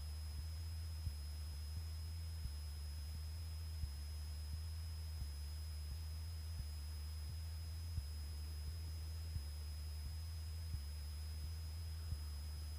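Cessna's engine and propeller drone, heard as a steady deep hum with faint irregular ticks and a thin high whine above it.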